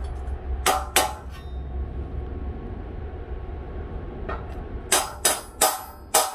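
Hammer blows on a steel angle-iron frame lying on a steel plate, metal on metal with a short ring after each blow. There are two blows about a second in, then a quick run of about six in the last two seconds, tapping the frame flush.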